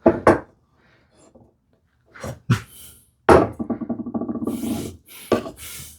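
Knocks and clatter of a wooden panel and hand tools being handled on a workbench, with a short rattling scrape in the middle.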